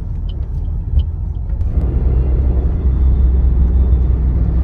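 Low, steady road and engine rumble of a car driving, heard from inside the cabin, growing louder about two seconds in as it picks up speed.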